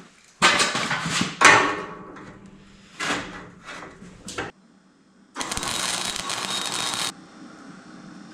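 Metal parts clattering and knocking as they are handled and set in place, then a steady hissing noise for under two seconds about five seconds in.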